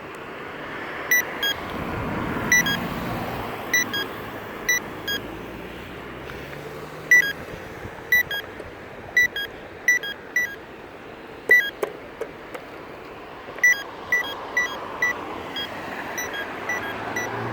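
Campbell accessible pedestrian signal crosswalk button sounding short, sharp beeps that repeat at uneven intervals, about one or two a second, over steady street traffic noise.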